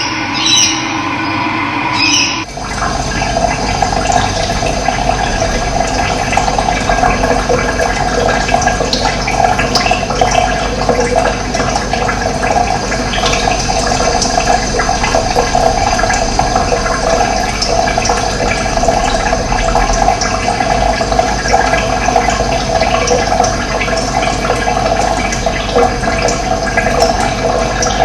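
Running water, a steady rush that cuts in abruptly about two and a half seconds in.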